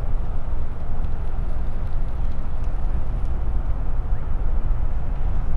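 Steady low outdoor rumble with no distinct events, with a few faint high ticks about two to three seconds in.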